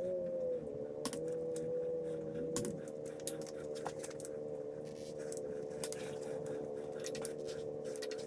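Irregular metallic ratchet clicks from a wrench on the bolts of an LS 5.3 V8 block during the 45 ft-lb torque pass, over a steady background hum.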